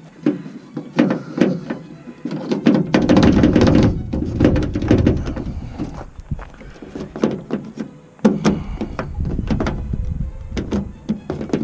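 Irregular clicks, knocks and thunks of hands handling small plastic handle parts in and against a van's opened passenger door, busier and heavier about three seconds in and again near eight seconds.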